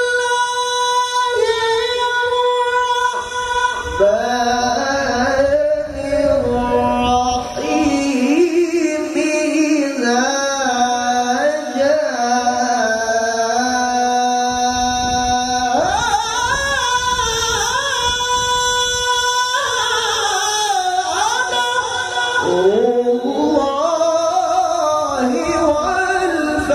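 A male qari's melodic Qur'an recitation (tilawah), sung into a microphone with long sustained notes and winding, ornamented runs. A high held note ends about a second in, and a long steady low note is held for about four seconds past the middle.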